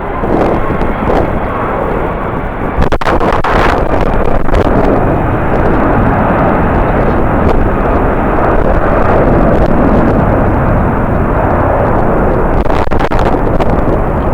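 Strong wind buffeting the microphone: a loud, deep rumbling rush with sudden gust thumps, growing louder over the first few seconds.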